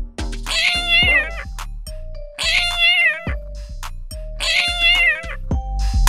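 Kitten meowing three times, about two seconds apart, each meow under a second long, over background music.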